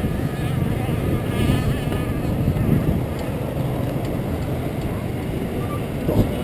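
Steady road and wind noise on a moving camera's microphone in street traffic, with the buzz of nearby motor scooter engines, clearest about a second in.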